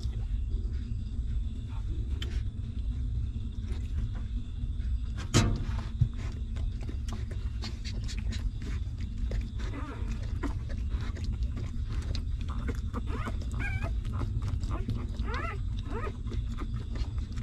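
Newborn puppies suckling at their mother with many small wet clicks, and in the second half several short, high whimpers that rise and bend in pitch. One sharp knock comes about five seconds in, over a steady low rumble.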